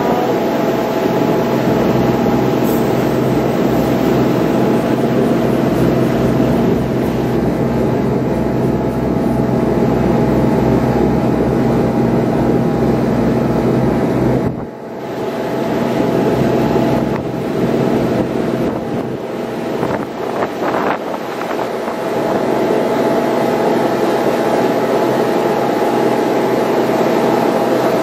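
Passenger shuttle boat's engine running steadily under way, a loud drone with a constant hum, with wind buffeting the microphone. About halfway through, the deep part of the drone drops away suddenly and wavers for several seconds before the steady drone comes back.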